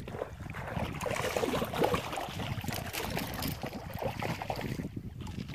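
Water lapping and splashing irregularly against the hull of a small fishing boat.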